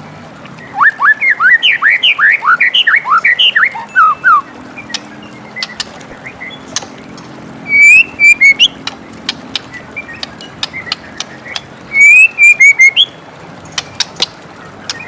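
White-rumped shama singing: a fast run of rising whistled notes, then two shorter phrases of slurred whistles mixed with sharp clicks, a few seconds apart.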